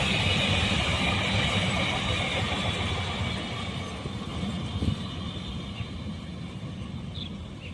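Train running past, a low rumble with rail and wheel hiss, gradually fading away.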